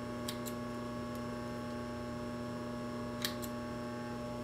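Small scissors snipping at twisted cord trim: two pairs of light clicks, one near the start and one about three seconds in, over a steady electrical hum.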